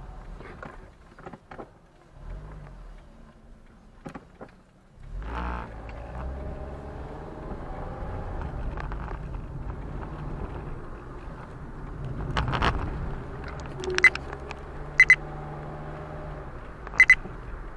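Car cabin sound as the car drives off: a few small clicks and knocks, then a steady low engine and road noise that starts about five seconds in. Several sharp clicks come near the end.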